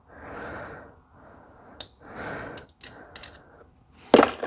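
Hand-tool and parts-handling noises during a diesel injection pump teardown: soft scraping or rustling, scattered light clicks, and one sharp clank about four seconds in.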